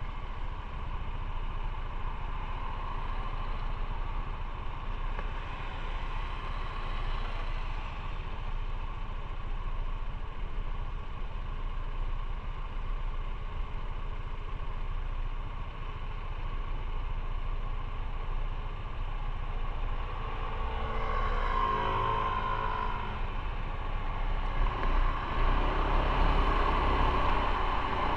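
Motorcycle engine running at low speed in slow city traffic: a steady low rumble with road and traffic noise. About twenty seconds in, a brief wavering pitched sound rises over it. Near the end the level climbs as the bike picks up speed.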